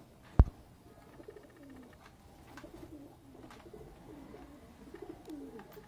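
Domestic pigeons cooing, a string of short, low, repeated coos, with one sharp knock about half a second in.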